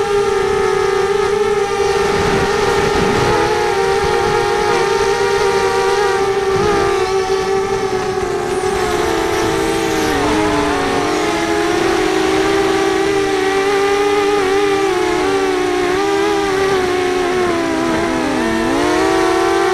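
FPV racing quadcopter's brushless motors and propellers whining steadily, several close pitches together, wavering with the throttle and dipping briefly near the end.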